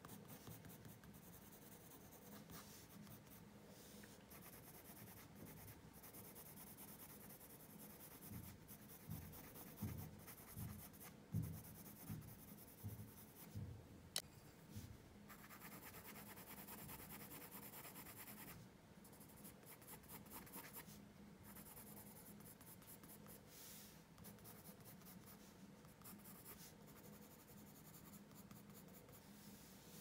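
Colored pencil scratching on paper in many short strokes, faint. A few soft thumps come around the middle, with a sharp click among them.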